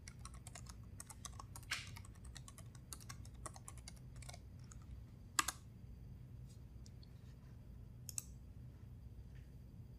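Typing on a computer keyboard: a quick run of keystrokes for about four and a half seconds, then one louder click about five and a half seconds in and a few sparse clicks after, one near eight seconds.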